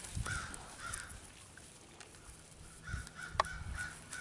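Faint bird calls, several short calls near the start and again from about three seconds in, with a sharp click a little after three seconds in.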